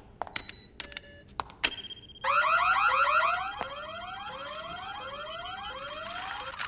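Cartoon warning alarm whooping: a rising sweep repeated about every 0.7 seconds over a steady high tone, loud at first and then quieter, signalling that the spell test is under way. A few short clicks come before it.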